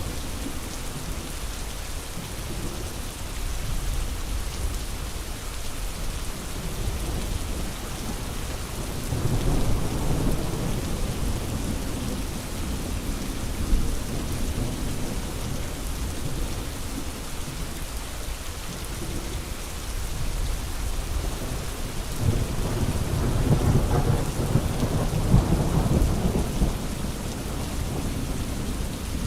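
Steady rain falling, with thunder rumbling twice: a rolling swell about a third of the way in and a longer, louder one near the end.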